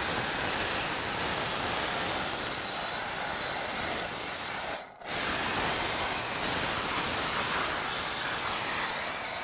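Two-component spray foam gun hissing steadily as it sprays foam insulation. The hiss cuts out for a moment about five seconds in, then starts again.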